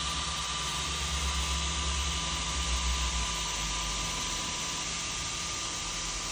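Neje Max 4 laser engraver with its E80 laser module running while engraving plywood: a steady whirring hiss from the module's twin cooling fans and air flow, with a thin steady whine. Under it runs a low hum that eases about three seconds in.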